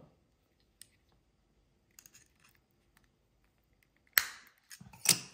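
Small screwdriver prying at the plastic battery cover of a Lexus smart key fob: faint scrapes and ticks, then a sharp plastic snap about four seconds in, followed by a few more clicks.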